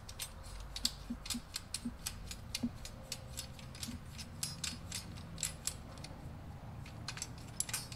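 Irregular light metal clicks and ticks, several a second, as the threaded preload adjuster collar on an MRP Hazard coil rear shock is spun loose by hand to free the coil spring.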